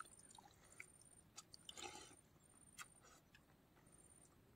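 Near silence with faint eating sounds: a few soft mouth clicks and a brief soft smear of sound about two seconds in, from someone eating panta bhat (soaked rice) with milk.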